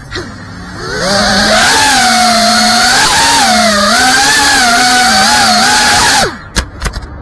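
FPV quadcopter's brushless motors whining, the pitch rising and falling as the throttle changes. The whine is quieter for the first second, and near the end it drops away with a few sharp clicks.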